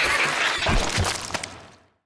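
Crashing and breaking sound effects with two heavy thuds, then a sharp crack, fading out to silence near the end.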